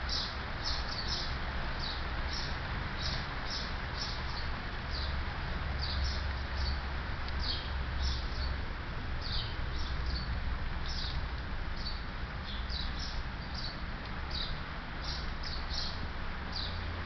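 Steady rain falling, heard as an even hiss, with a small bird chirping repeatedly in short high notes, about two a second, and a low rumble underneath.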